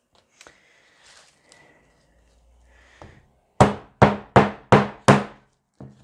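Rubber mallet striking a metal hole punch five times in quick succession, about three blows a second, a little past halfway through, after some quiet handling of the sheet.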